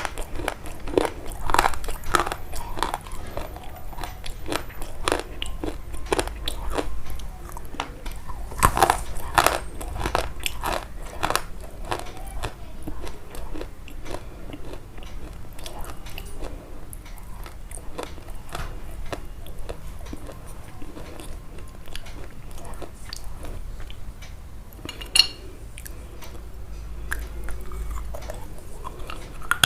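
Crisp food being bitten and chewed close to the microphone: a run of sharp crunches, thick at first and thinning out later on.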